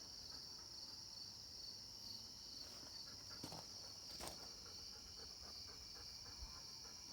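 Faint, steady high-pitched chirring of an insect chorus, with two faint ticks about halfway through.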